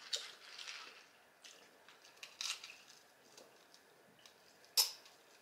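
A person drinking from a glass close to the microphone: faint sips and swallows, with a small click about two and a half seconds in and a sharper click near the end.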